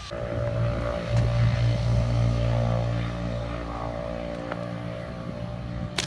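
An engine running at a steady pitch with a low hum, loudest a second or two in and then easing off a little.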